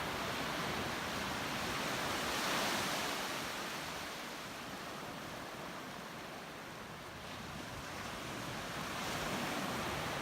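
Ocean surf washing ashore: a wave swells about two and a half seconds in, eases off, and another builds near the end.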